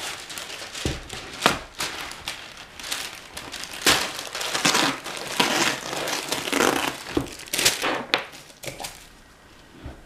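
A sheet of wax paper crinkling and rustling as it is handled and spread out, with a few sharp knocks among the rustling; it dies down near the end.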